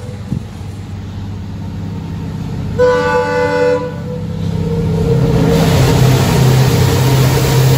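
A WDP4-class EMD diesel locomotive approaching through a rail tunnel, its engine rumble growing steadily louder, with one horn blast of about a second roughly three seconds in.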